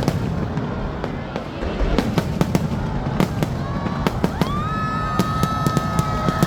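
Fireworks going off in rapid crackling pops over a low rumble. About four seconds in, a high whistling tone rises and then holds steady.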